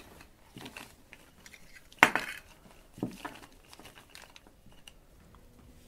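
Hands handling small hard objects and a cloth bag on a cloth-covered table: scattered clinks and knocks, the loudest about two seconds in and another about a second later, with light rustling and ticks between.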